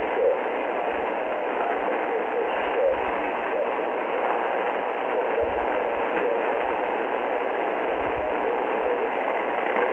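Shortwave radio reception on an Icom IC-R30 receiver in upper sideband mode: steady static hiss with a weak pirate broadcast faintly audible beneath it.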